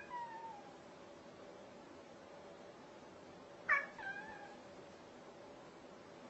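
Domestic cat meowing twice: one call right at the start and another about three and a half seconds in, each starting sharply and falling in pitch.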